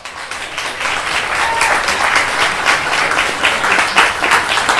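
Audience applauding, many hands clapping continuously.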